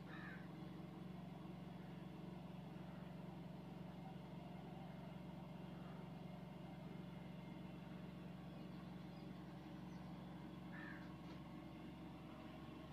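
Steady low hum inside the driver's cab of a 13000-series conventional EMU train. Two short bird calls come through, one right at the start and one about eleven seconds in.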